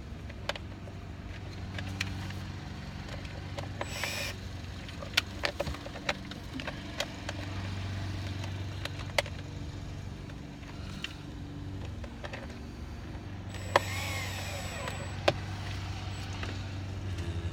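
A small electric motor whirs in two short bursts, about four seconds in and again near the end, as the bolts of the Nissan Titan's steering column cover are run in. Sharp clicks of tools and plastic trim sound between them over a steady low hum.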